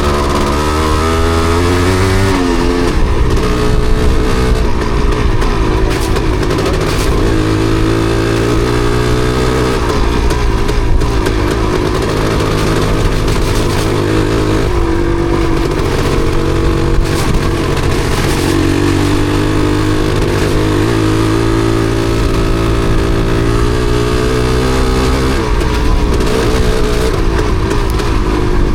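Yamaha DT250MX single-cylinder two-stroke motorcycle engine under way, its pitch rising and falling repeatedly as the throttle is opened and eased off. The engine is misfiring, which the rider puts down to water on the spark plug.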